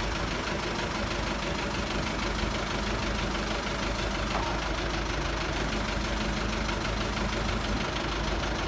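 A crane truck's diesel engine idling steadily, an even, unchanging run.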